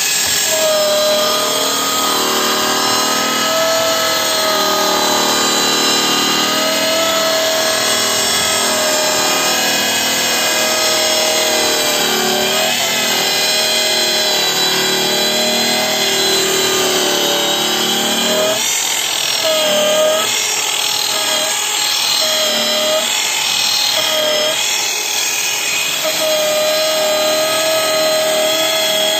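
Angle grinder running a DE-TERO KELO F 150 sanding drum over deck boards: a steady high motor whine with the grit's rasp on the wood. The pitch wavers as the drum is worked across the boards. For several seconds past the middle the whine breaks into short dips and recoveries.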